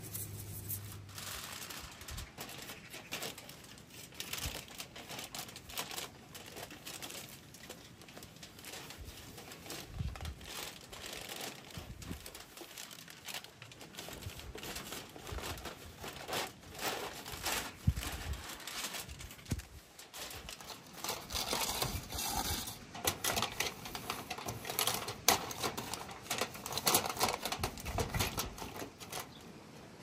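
Aluminium foil and paper crinkling and rustling as they are handled, in irregular crackles and clicks that grow denser and louder in the second half.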